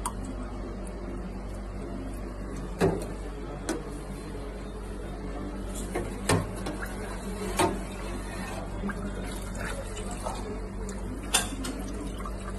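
A steel ladle knocking sharply against stainless-steel serving trays about five times while liquid is scooped, stirred and poured into plastic cups, over a steady low hum.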